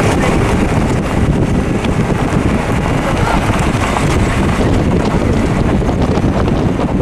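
Wind buffeting the microphone: a loud, continuous, gusty rumble.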